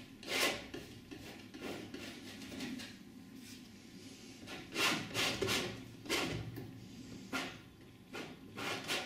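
Metal painting knife spreading oil paint across a stretched cotton canvas: a series of irregular scratchy strokes, the loudest about five seconds in.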